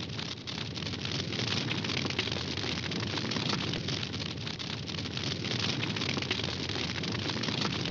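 Wood campfire burning, crackling steadily with a dense run of small pops and snaps over a hiss of flames.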